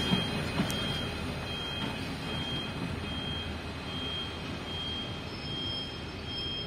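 Rail Polska M62M-002 diesel locomotive running as it moves away along curving track, its engine and wheel noise slowly fading. A faint high wheel squeal comes and goes.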